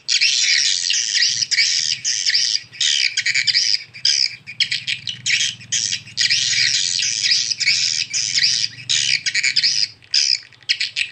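Recorded swiftlet calls played back through two horn tweeters on a small MP3 player-amplifier: a dense, rapid twittering of high chirps with short breaks. It is an edited swiftlet lure call (suara panggil) of the kind used to draw swiftlets into a nesting house. A faint low hum runs beneath it.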